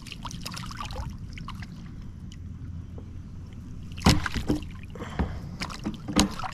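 Water splashing and sharp knocks at a kayak while a hooked crappie is fought and brought in. The loudest cluster of splashes comes about four to six seconds in.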